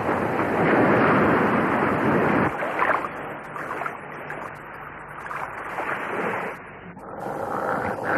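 Sea wash of a ship's hull cutting through waves: a steady rushing of water, loudest for the first couple of seconds, then softer with a few swells. It stops about seven seconds in.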